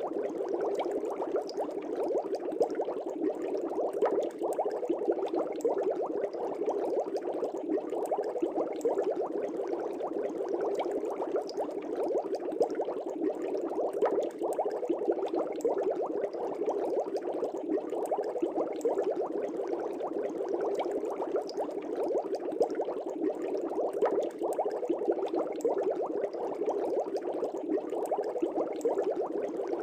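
Fish tank bubbles: a continuous, dense stream of air bubbles gurgling and popping in aquarium water, steady throughout.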